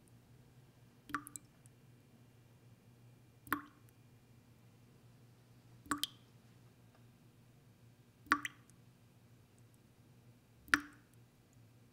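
Water dripping slowly and evenly: five drops, one about every two and a half seconds, each a sharp plop with a short ring. A faint steady hum lies underneath.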